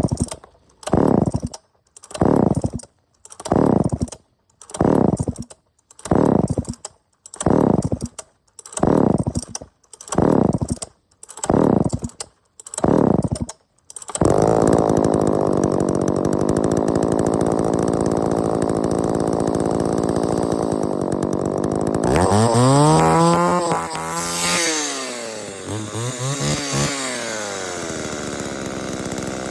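Vintage John Deere two-stroke chainsaw being pull-started: about sixteen quick pulls on the recoil starter, each a short falling whir, until it catches about halfway through and runs steadily. Near the end it is revved up and back down twice, then settles back to running.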